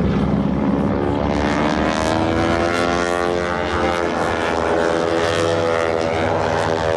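Propeller airplane engine running loudly, its pitch rising and then falling as the plane flies past.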